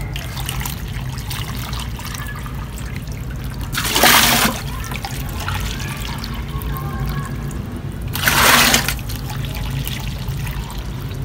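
Diluted liquid fertilizer trickling in a thin stream from a plastic bowl into the neck of a plastic watering can, with two brief, louder splashes about four and eight and a half seconds in.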